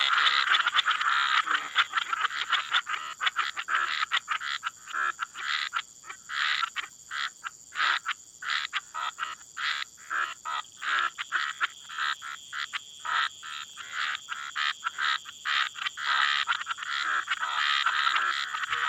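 A chorus of frogs and toads calling at night: many short, overlapping croaks in quick succession, with a steady high-pitched tone running underneath.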